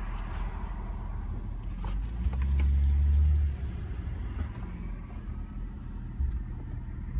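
Cabin noise of a moving Mercedes-Benz sedan: a steady low rumble of engine and road, swelling louder for about a second a couple of seconds in.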